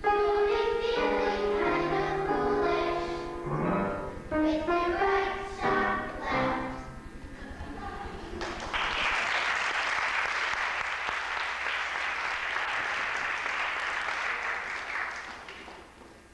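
A children's choir sings the last phrases of a song with piano, then the audience applauds for about seven seconds, the clapping fading away near the end.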